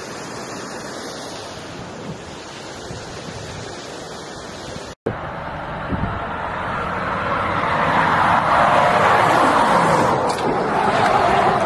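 Wind rushing over the microphone for about five seconds. Then a heavy truck drives past close by on a dusty road, its engine and tyre noise swelling to a peak a few seconds later and easing slightly after.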